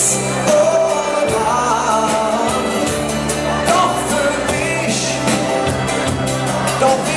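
Kölsch carnival rock band playing live with a lead singer: a sung melody over steady bass notes and drums, with cymbal crashes at the start and about five seconds in.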